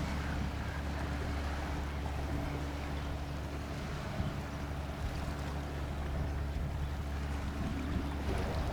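A passing boat's engine running with a steady low drone, mixed with wind noise.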